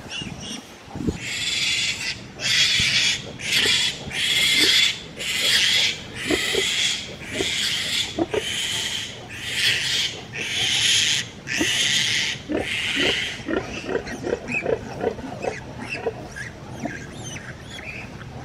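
Kunekune piglets squealing, about a dozen loud, shrill screams one after another, as they are carried into a new pen. Near the end the screams stop and give way to short, lower grunts.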